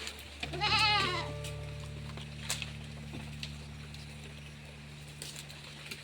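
A goat gives one wavering bleat about half a second in, over a steady low hum.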